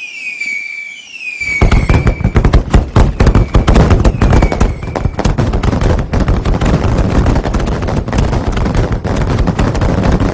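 Fireworks: a few high whistles falling in pitch, then from about a second and a half in a dense, rapid crackle of bangs that keeps going.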